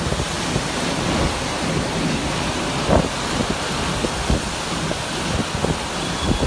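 Hurricane wind and rain blowing steadily, with the wind buffeting the microphone in a few dull thumps, one about three seconds in and another near the end.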